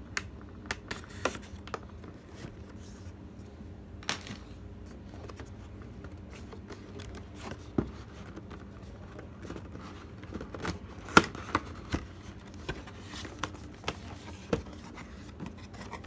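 A cardboard CPU retail box being opened by hand: a tool scraping at the seal sticker, then scattered clicks, taps and scratches as the lid and inner flaps are worked open, with a sharp click about eleven seconds in the loudest.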